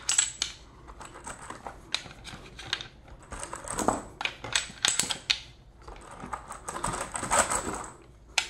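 Brass .223 cartridges clicking and clinking as they are picked from their cardboard box and pressed into a rifle magazine, in quick clusters of small metallic clicks.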